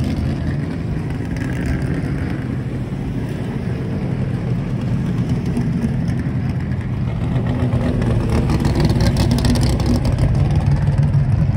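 V8 engines of vintage Trans Am race cars running at low speed. The engine sound grows louder from about two-thirds of the way through as a Camaro drives close past.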